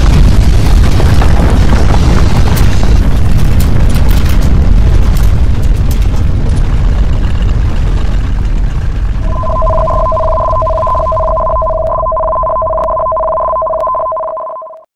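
Deep earthquake rumbling with scattered rattles and crackles, slowly dying down. About nine seconds in, a steady two-tone electronic alarm tone starts over it, and both cut off abruptly near the end.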